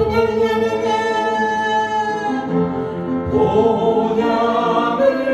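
Congregation singing a hymn with instrumental accompaniment, holding long sustained notes and moving to a new note about three seconds in.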